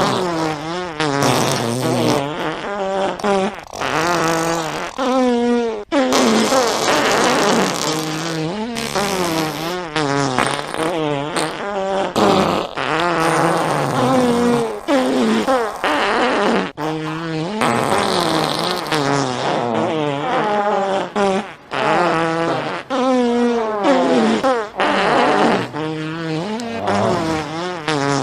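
A long string of fart sounds, one after another with short breaks, each a buzzing blow whose pitch wobbles up and down.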